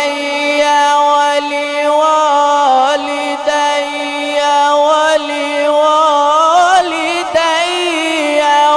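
A male reciter chanting the Quran in the melodic tilawat style, continuing the prayer 'rabbana ighfir li wa li walidayya' in one long, drawn-out, ornamented line. The voice wavers and rises in pitch near the end.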